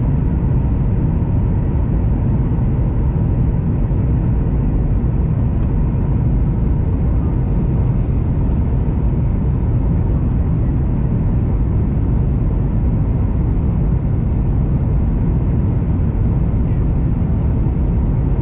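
Steady low rumble of a jet airliner's engines and rushing air, heard inside the passenger cabin during flight, with a faint steady hum on top.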